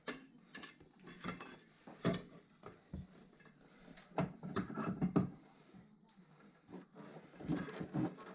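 Irregular knocks and clatter of hard objects being handled, with no engine running. The busiest stretch is a little past the middle, then a quieter gap before more clatter near the end.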